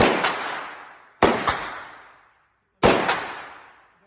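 Three single rifle shots from a CZ Bren 2, about one and a half seconds apart. Each crack has a fainter second crack about a quarter second later and a ringing tail that fades over about two seconds.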